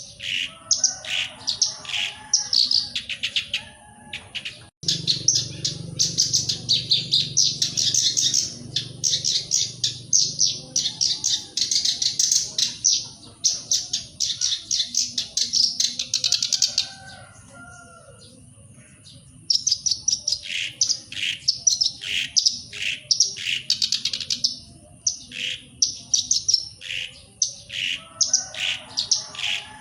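Black-browed reed warbler singing a long run of rapid, repeated high notes. It breaks off for a couple of seconds past the middle, then starts again.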